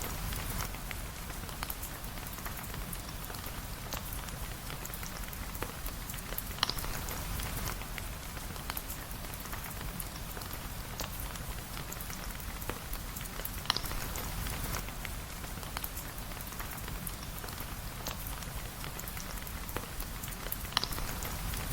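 Steady rain pattering on a surface, full of small drop ticks, with a sharp click standing out three times, about seven seconds apart.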